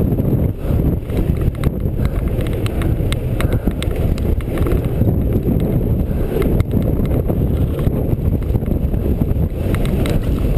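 Mountain bike ridden fast downhill: wind buffeting the microphone and tyres rumbling, with frequent rattling clicks from the bike as it rolls over wooden boardwalk slats and onto dirt.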